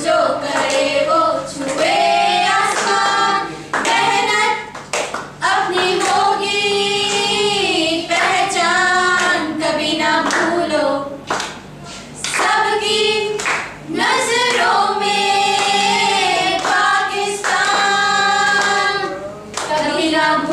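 A small group of young women singing a song together.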